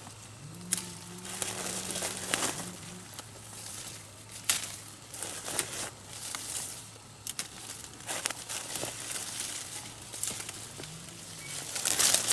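Leaves and twigs of a citrus tree rustling and crackling in irregular bursts as fruit is picked by hand, the loudest burst near the end.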